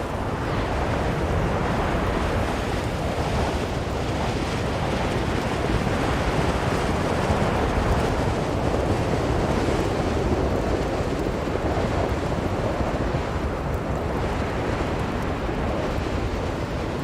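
Blizzard wind blowing steadily, a deep rushing roar that swells gently and eases.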